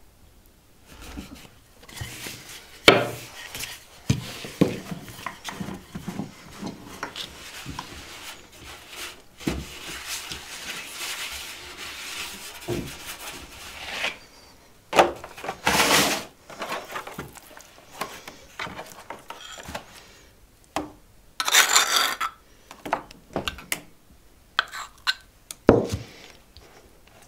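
Kitchen handling sounds during cooking: irregular knocks, taps and scrapes of wooden and metal utensils and dishes, with a couple of longer, louder scraping noises in the second half.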